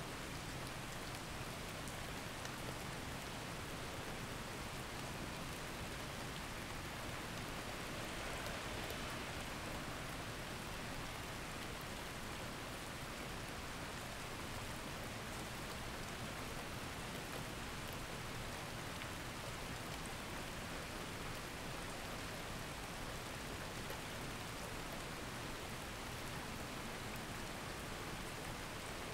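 Steady rain, an even hiss with a fine patter of drops.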